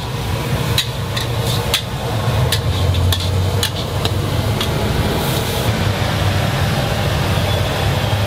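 Sharp, irregular clinks and knocks of cooking utensils at a noodle stall, with a short hiss about five seconds in, over a steady low engine hum.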